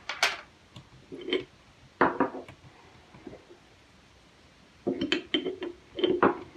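Small stainless steel parts of a derringer clinking and clicking as they are handled, a barrel being swapped and fitted to the frame. Scattered single clinks, some briefly ringing, then a quick cluster of clicks about five seconds in.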